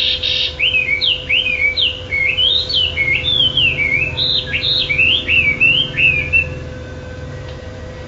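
Caged wambi songbird singing a fast, unbroken run of whistled notes that swoop up and down in pitch, stopping about six and a half seconds in. A steady low hum runs underneath.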